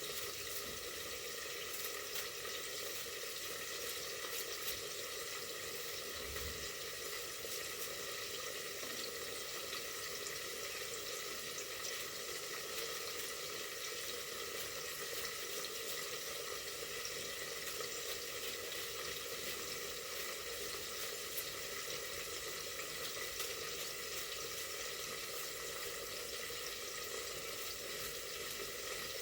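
Food frying in hot oil in a pot: a steady sizzle with a constant crackle of small pops.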